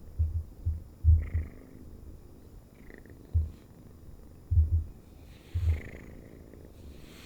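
Selkirk Rex kitten purring in uneven clusters of low pulses.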